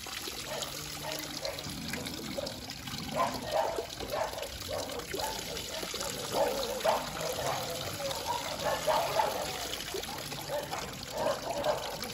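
Water poured from a plastic dipper splashing over a small pig and onto the ground, in repeated pours from about three seconds in, over a tap running steadily into a basin.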